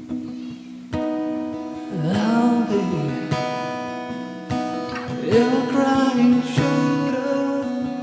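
Acoustic-electric guitar strummed in a steady rhythm, recorded through a BM800 condenser mic and V8 sound card, with a voice singing two long, sliding notes over it.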